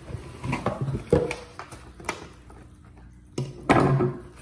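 Cardboard shipping box being opened by hand: flaps scraping and knocking, with a cluster of sharp knocks about a second in and a louder bump and rustle near the end.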